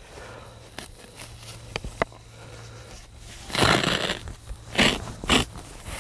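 Hay probe being pushed into a dry round hay bale, the hay crunching and scraping around the tube in three bursts, the first and longest about three and a half seconds in. A few faint steps on dry stubble come before it.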